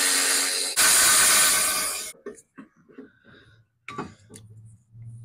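Cordless impact wrench run in two bursts of about a second each, spinning out the two 17 mm bolts that hold the Lexus SC400's stock front brake caliper. A few clicks and clanks follow as the freed caliper is handled, then a low hum near the end.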